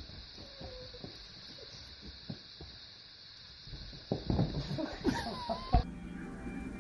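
Soft thumps and scuffling of a cat jumping and twisting on a leather couch, growing busier and louder about four seconds in.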